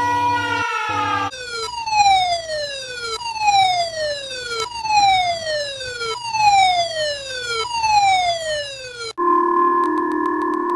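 Electronic emergency alert tone: a steady held chord that bends downward, then five falling siren-like sweeps about a second and a half apart, then a different steady chord takes over about nine seconds in.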